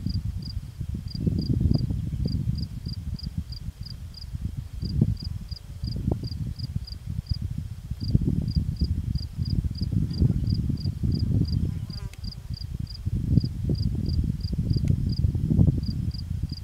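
Gusty wind rumbling on the microphone, swelling and fading every second or two. Over it, a thin high chirp repeats steadily, about three or four times a second, in short runs with brief gaps.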